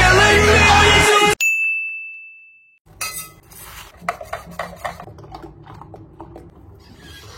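Music cuts off about a second in. A single bright ding rings out and fades over about a second, then a string of light clinks and clicks follows.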